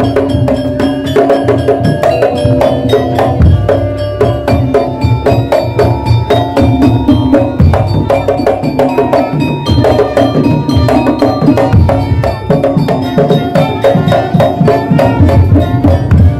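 Madurese daul percussion band playing: fast, dense drumming and struck percussion, with a melody line held over it.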